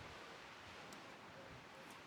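Near silence: faint outdoor background noise with a couple of barely audible ticks.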